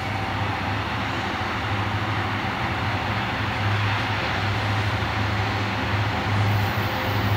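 Union Pacific diesel locomotives leading a coal train on the approach: a steady low engine rumble that grows slowly louder.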